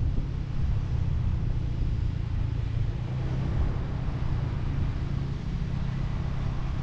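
Motorbike riding along a city street: a steady low engine drone mixed with wind and road noise.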